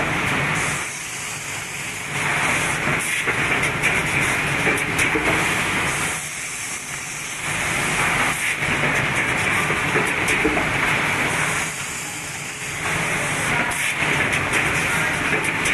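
Automatic rigid-box forming machine running: a steady mechanical whir and air hiss that swells and dips in a regular cycle of roughly five seconds, with scattered sharp clicks.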